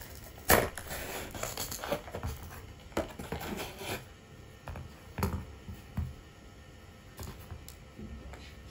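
Cardboard packaging being cut and pried open by hand: scattered scraping and tearing of cardboard with a few sharp clicks, the loudest about half a second in and again about five seconds in.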